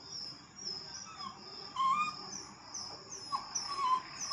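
Puppies whimpering: a string of short, high-pitched whines, some falling in pitch, coming more often toward the end.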